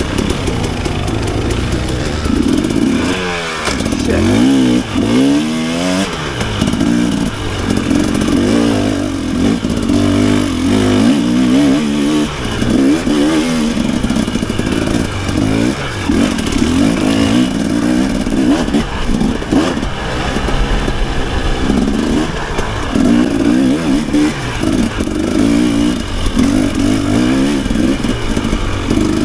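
Off-road dirt bike engine being ridden hard, its pitch revving up and dropping off again and again as the throttle is worked and gears change, heard from on the bike.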